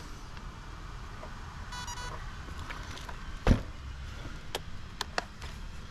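Handling noises of RC trucks and a transmitter on a wooden workbench: one sharp knock about three and a half seconds in, the loudest sound, followed by several light clicks. A brief high electronic-sounding tone comes about two seconds in.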